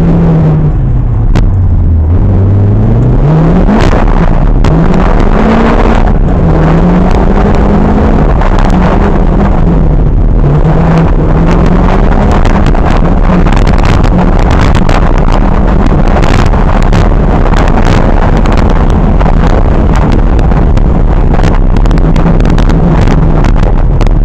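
Historic rally car engine at full effort on a stage, heard from inside the car: the revs drop low about two seconds in, climb hard, then rise and fall repeatedly through gear changes. Under it runs a steady rush of tyre and road noise with frequent small ticks.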